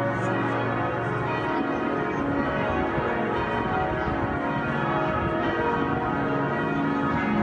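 Large church bells ringing together in a continuous peal, many bell tones overlapping and sounding on without a break.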